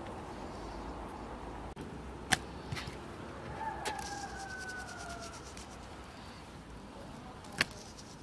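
Seasoning being sprinkled onto thin slices of raw meat on a wooden cutting board, with a few sharp taps and clicks, two of them loud. About midway a distant rooster gives a crow that falls in pitch over a second or so.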